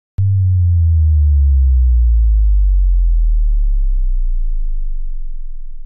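Synthesized deep bass hit of a logo intro sting: it starts suddenly with a click and a low, humming tone that sinks slightly in pitch and slowly fades over several seconds.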